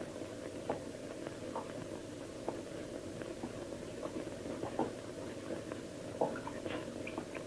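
Faint, irregular taps and creaks of wooden boards and stairs over the steady hiss of an old film soundtrack, with a slightly louder tap about six seconds in.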